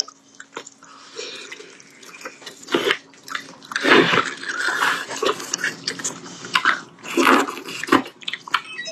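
Close-up chewing of slow-braised beef rib meat by two people eating, a string of irregular mouth noises with louder bursts about four seconds in and again near seven seconds.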